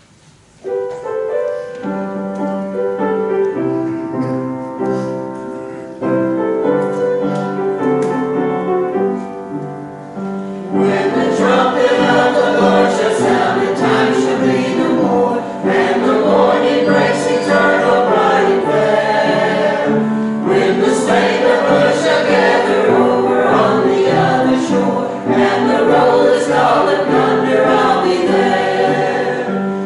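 Small church choir singing a hymn with keyboard accompaniment. The keyboard plays held chords alone at first, and the choir comes in about eleven seconds in, louder.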